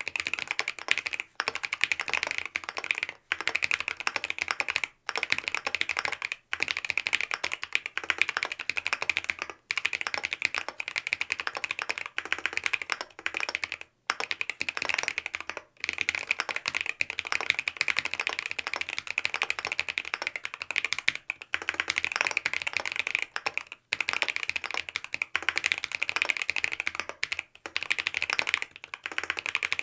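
Custom Mont Cervin mechanical keyboard with Tribosys-lubed BSUN OG Holy Panda tactile switches on a polycarbonate plate, dampened with Poron and EPDM foam, being typed on quickly. The keystrokes run in rapid flurries, broken by short pauses every few seconds.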